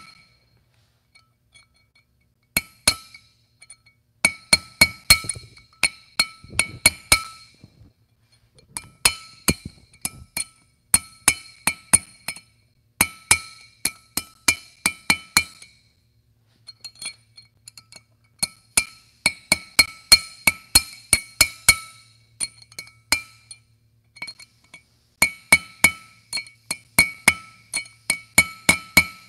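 Hammer striking a drift to drive a new wheel-bearing race down into a brake rotor hub: sharp metal-on-metal taps, about three a second, in runs of several seconds with short pauses, each one ringing.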